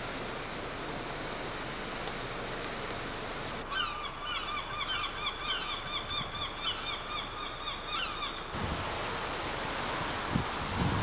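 Steady outdoor wind noise, with a flock of birds calling over and over in short rising-and-falling calls for about five seconds in the middle. Near the end, wind buffets the microphone in low thumps.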